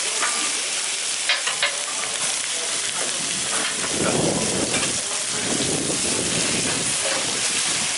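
Beef sizzling steadily on a hot flat-top griddle. A few sharp metal clicks of a spoon or tongs on the plate come about a second and a half in, and a low rumble swells through the middle.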